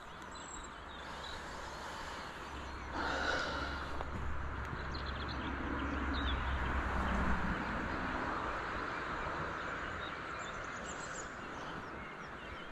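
Outdoor riverside ambience: a steady hiss of flowing water and air, with a low rumble in the middle few seconds and a few faint bird chirps.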